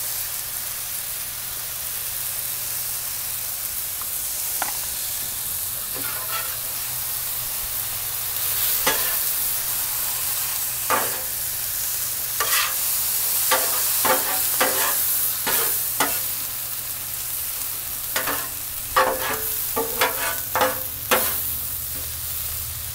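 Onions, garlic, drained Rotel tomatoes and green chilies, with seasoned alligator meat beside them, sizzling on a Blackstone steel flat-top griddle. A metal spatula scrapes and clacks against the griddle surface as the vegetable mix is stirred, a few times early on and in quick succession through the second half.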